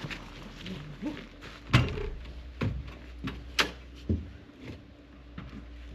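Boots knocking on the steel steps and cab door of a wheel loader as someone climbs up to the cab, several separate clunks about a second apart over a low steady hum.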